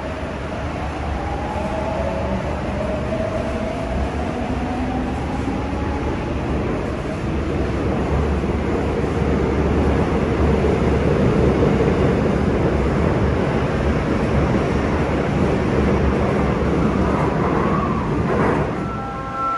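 Korail 341000-series electric train pulling out of an underground platform behind screen doors. Its motor whine rises in pitch over the first few seconds under a steady rumble of wheels that is loudest about halfway through and eases near the end.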